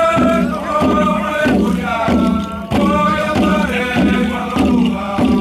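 Group of men singing a traditional chant together in long held notes over a steady beat of about two strikes a second.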